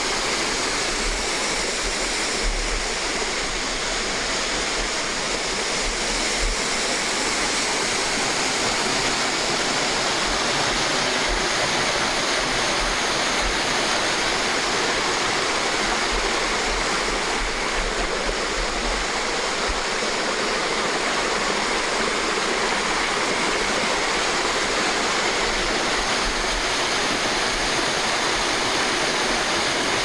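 Waterfall of about 10 m dropping into a plunge pool: a steady rush of falling water that does not change.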